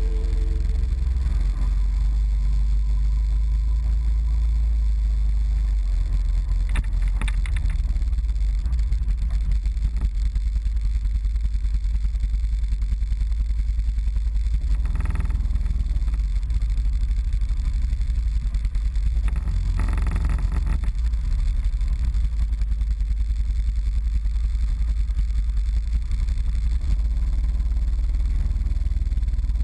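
ATV engine running with a steady low rumble, heard from a camera mounted on the quad, with three brief louder rushes of noise spread through.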